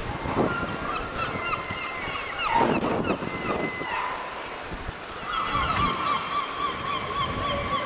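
Gulls calling: a run of short, hooked yelping notes in the first half, then a fast wavering series of calls from about five seconds in, over a wash of wind and water noise.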